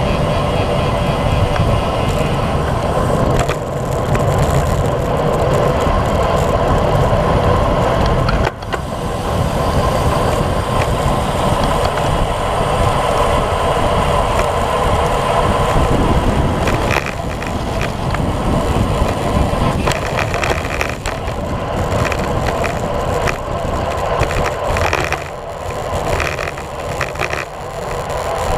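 Wind rushing over a bicycle-mounted action camera's microphone at road-bike speed, mixed with tyre noise on wet asphalt. There is a single sharp knock about eight and a half seconds in.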